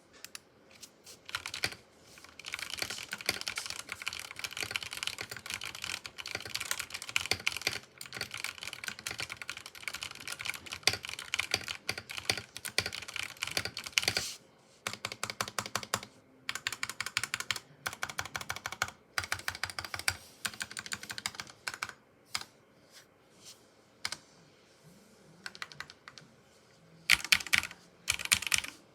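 Typing on a custom mechanical keyboard with lubed Outemu red linear switches, pudding keycaps, lubed stabilizers and a tape mod: fast, steady runs of keystrokes for the first half, then shorter bursts broken by pauses, with a few harder, louder strokes near the end.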